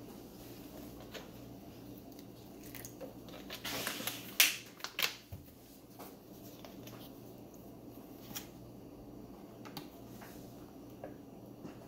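Plastic bottles being handled on a stone countertop: a brief rustle and two sharp plastic clicks about four seconds in, then faint scattered clicks and taps.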